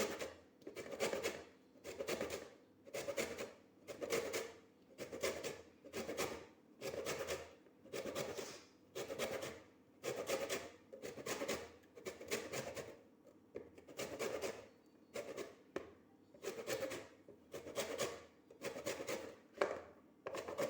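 Lemon rind being grated on a fine hand grater to take off only the yellow zest: steady rasping strokes, about one a second.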